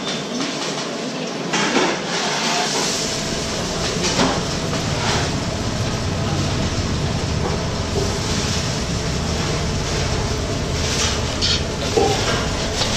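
Steady rumbling noise with a few short knocks and clinks while sugar syrup is poured from a metal ladle into a wooden candy mould; the low rumble grows stronger about three seconds in.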